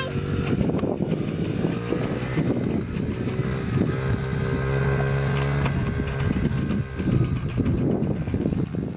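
Engines running steadily: a pickup truck driving along a dirt track with a dirt bike riding close behind, a continuous drone with small rises and falls in pitch.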